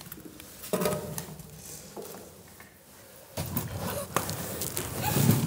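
A person moving on foot through an echoing concrete bunker: irregular footsteps, scuffs and knocks, louder about a second in and again past the middle.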